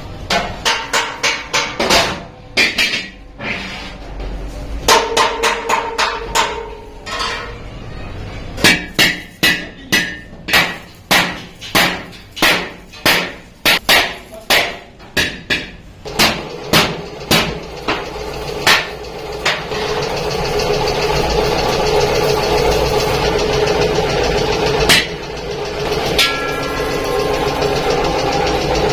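Hammer blows on sheet iron, about two a second, some with a short metallic ring. Later on, the blows give way to a machine running steadily.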